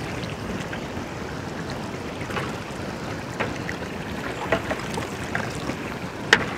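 Long metal perforated ladle stirring thin masala and mutton stock in a large aluminium pot, the liquid sloshing, with scattered clicks and a sharper knock near the end. A steady rush of background noise runs underneath.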